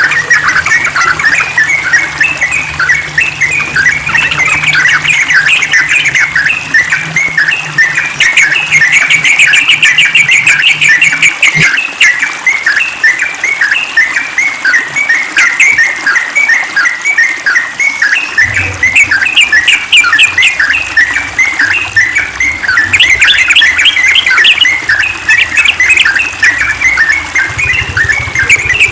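Yellow-vented bulbul singing a rapid, unbroken run of bright chattering notes.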